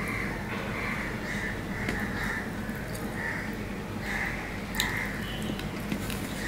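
Close-miked chewing of a mouthful of rice and fish, a soft wet squelch about twice a second, with a sharp tap of fingers on the steel plate about three-quarters of the way in.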